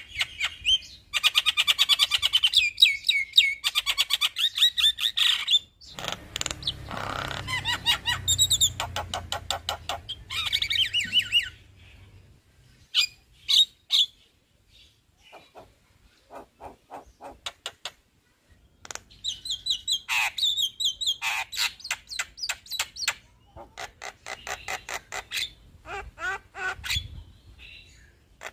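Male Javan myna singing long, rapid rattling runs of repeated notes, in two spells with a sparser few seconds between them. A low rumble sits underneath for several seconds in the first half.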